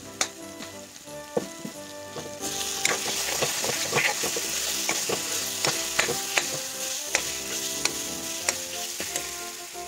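Tomato and spice-powder masala sizzling in oil in a kadai, being fried until the tomatoes break down, while a steel ladle stirs and scrapes it, clicking against the pan again and again. The sizzle gets much louder about two and a half seconds in as the mixture is turned over.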